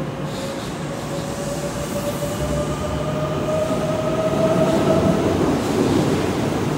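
Kintetsu 23000 series Ise-Shima Liner electric train pulling out and accelerating. A whine from its traction motors rises steadily in pitch and fades about five seconds in, while the running noise of the wheels on the rails grows louder.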